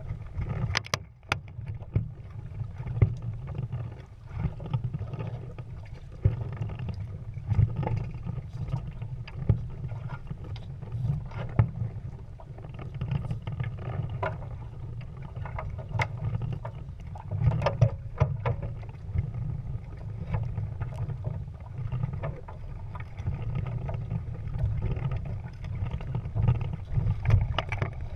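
Water rushing along and slapping against a sailing Prindle 16 catamaran's hull, with frequent short, irregular splashes over a steady low rumble of wind on the microphone.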